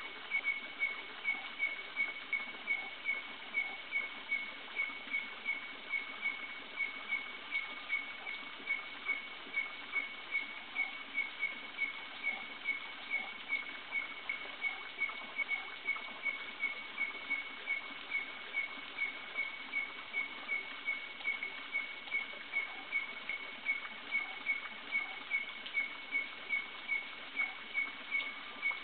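An animal calling at night: one short, high chirp repeated evenly about twice a second, over a steady background hiss.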